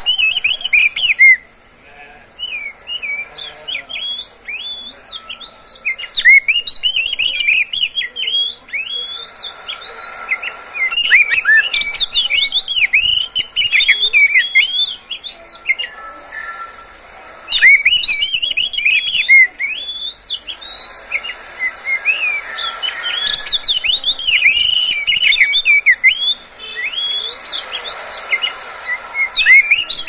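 Oriental magpie-robin (kacer) singing a long run of quick, varied whistled phrases that sweep up and down. The song breaks off briefly about two seconds in and again around the middle.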